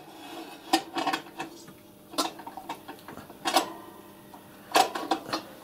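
Metal clinks and taps as the fire-door plate of a miniature live steam locomotive is fitted onto the backhead by hand: about five sharp metal-on-metal knocks spread over the seconds, each with a short ring.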